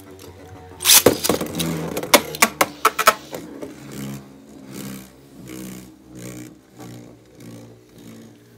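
Two Beyblade Burst spinning tops battling in a plastic stadium. A quick run of sharp clicking clashes lasts about two seconds, then a rhythmic whirring that swells about every 0.7 seconds as a top circles the stadium rim.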